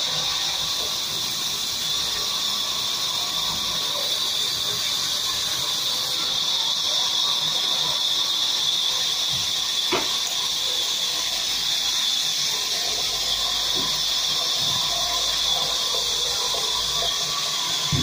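Large sawmill band saw running, a steady high-pitched hissing whine that does not change, with a single sharp knock about ten seconds in.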